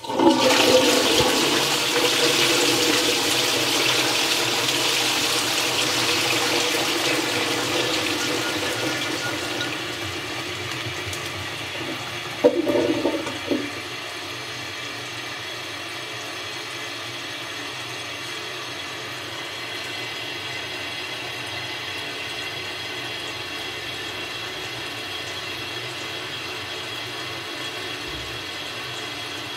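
Toilet flushing: a loud rush of water that slowly dies down over about ten seconds, a short loud gurgle about twelve seconds in, then water running on quieter and steady as the tank refills.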